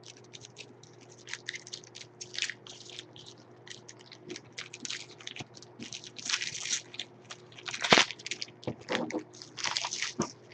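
Crinkling and rustling of a trading-card pack's wrapper being torn open and the cards handled, in irregular short bursts, with one sharper crackle about eight seconds in.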